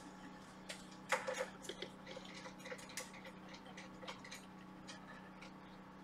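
Cotton swab scrubbing a PS5 circuit board around the HDMI port to clean it, making faint irregular scratchy ticks, the loudest cluster about a second in, over a low steady hum.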